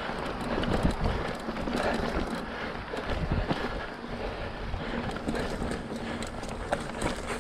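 Hardtail mountain bike (Specialized Rockhopper) riding along a dirt trail: tyres rolling and crunching over the ground, with irregular knocks and rattles from the bike jolting over bumps, under a low rumble of wind on the microphone.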